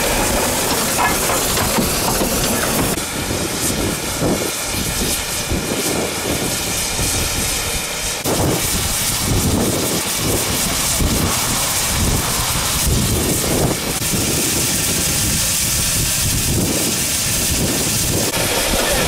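Narrow-gauge NGG16 Garratt steam locomotive standing with steam hissing steadily, with uneven low rumbles underneath.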